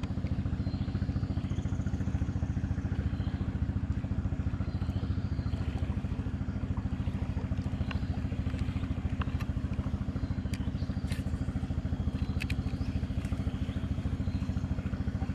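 A small engine running steadily at an even idle, with a fast, regular pulse and a few faint ticks over it.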